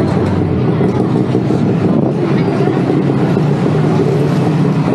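Busy street noise: a steady, loud, low rumble of traffic.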